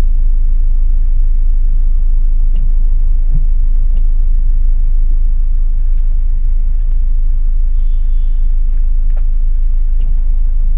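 Car engine idling while stopped, heard from inside the cabin as a steady low rumble, with a few faint ticks.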